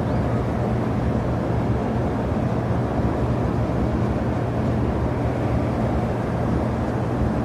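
Steady rumble of jet airliner engines, an even noise with a low steady hum underneath.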